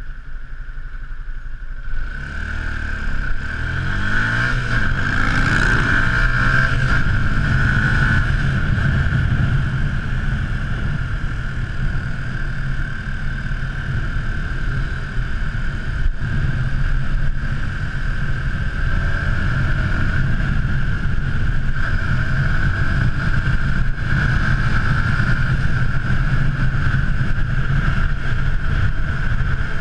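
Yamaha YZF-R125's 125 cc single-cylinder four-stroke engine ticking over at a stop. About two seconds in it pulls away, revving up through the gears, then settles into steady riding with wind and road noise.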